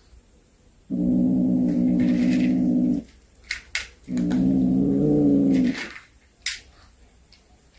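Domestic tabby cat growling over a small snake it has caught: two long, low, steady growls of about two seconds each, the possessive growl of a cat guarding its prey. A few short clicks come between and after them.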